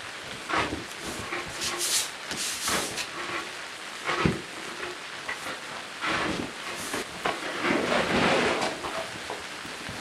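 Cardboard and sheets of paper being handled and laid down on a braided rug: irregular rustling and scraping with light knocks, and one sharper thump about four seconds in.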